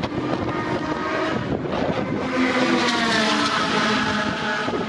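Sports car engine accelerating on the track, its note climbing in pitch from about two seconds in.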